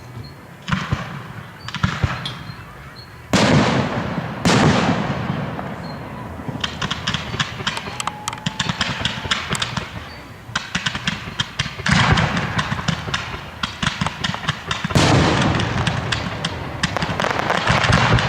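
Fireworks display: a series of loud aerial shell bursts, each a sudden boom with a long rolling echo. Between the booms come runs of rapid crackling from crackle-effect shells.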